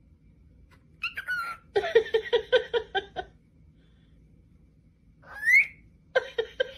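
Small pet parrot calling: short rising and falling whistles between quick runs of repeated chirps.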